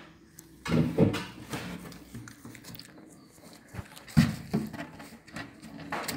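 Few-days-old Maltese puppies squeaking and whimpering in short irregular bursts, loudest about a second in and again just after four seconds.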